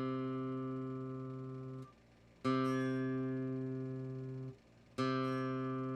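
Bajo quinto's C course plucked open as a tuning reference: the same single note is sounded three times, each ringing and slowly fading for about two seconds before it is damped and plucked again.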